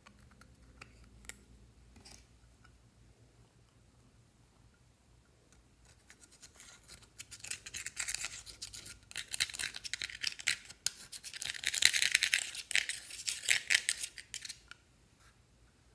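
Pressed blush powder scraped and crumbled out of its plastic compact with a thin metal pick: dense, dry, rapid scratching that starts about six seconds in and stops near the end, after a couple of faint clicks from handling the compact.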